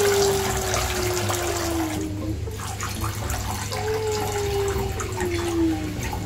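Shower water spraying and splashing into a filled bathtub, easing off briefly about two and a half seconds in. Twice, a clear tone slowly falls in pitch over about two seconds.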